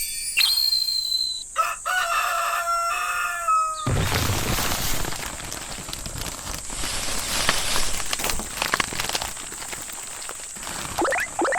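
Animation sound effects: a pitched, animal-like call that glides slightly down for about two seconds, then a long rushing noise, and a few quick rising squeaks near the end.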